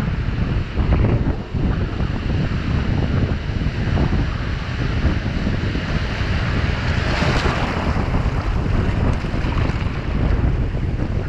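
Sea waves surging and washing against a shoreline rock right at the microphone, with wind noise on the microphone. About two-thirds of the way in a breaking wave rushes in with a louder hiss of foam.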